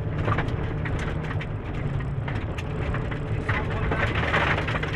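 Suzuki Swift GTI rally car's four-cylinder engine running under load on a gravel stage, heard from inside the cabin, with loose stones ticking and clattering against the car's underside. The gravel noise swells louder near the end.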